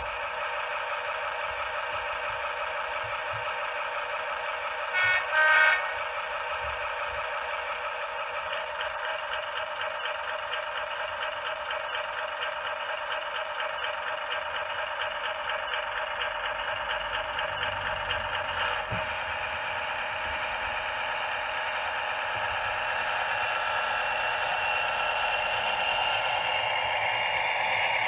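Model-railway DCC sound decoder playing a Class 70 diesel locomotive's engine sound through the model's small speaker: a steady, thin-sounding engine run with no deep bass. Two short loud tones sound about five seconds in, and from about twenty seconds the engine note climbs and grows louder as it revs up.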